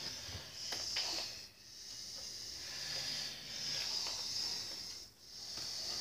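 Slow, hissing breathing of a person asleep, swelling and fading about once every three to four seconds, with a few faint clicks.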